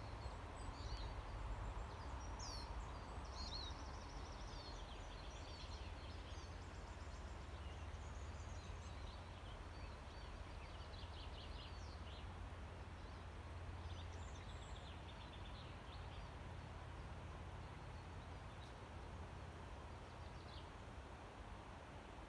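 Quiet outdoor ambience: small songbirds chirping and trilling faintly now and then, mostly in the first half, over a steady low rumble.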